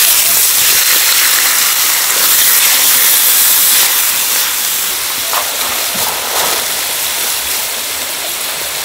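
Raw pork intestines sizzling on a large hot iron griddle as they are emptied onto it from plastic bags: a loud, dense hiss that eases a little after about four seconds.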